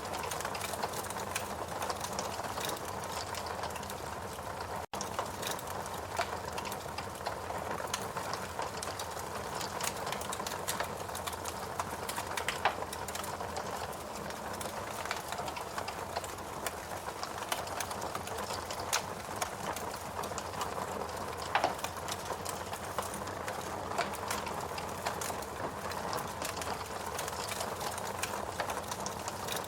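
Wood fire burning in a fireplace: a steady hiss with frequent small crackles and pops from the burning logs, and a few louder pops, notably around twelve seconds in and again around twenty-one seconds in. The sound cuts out for an instant about five seconds in.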